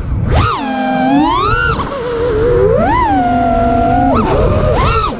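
Brushless motors of an FPV racing quadcopter (Xing Unibell motors on T-Motor Velox ESCs) whining as the pilot works the throttle. The whine holds a steady pitch and then sweeps up and back down about four times. Wind rush sits underneath.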